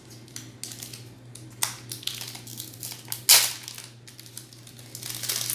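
Foil wrapper of a Pokémon trading card booster pack crinkling and crackling in the hands as it is opened, in irregular bursts with one sharp, loud crackle a little past the middle.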